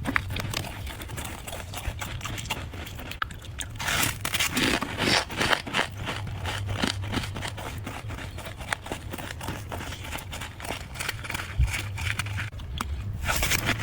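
Fluffy freezer frost being scraped and crunched: a dense run of short, rough scratching and crunching strokes, over a steady low hum.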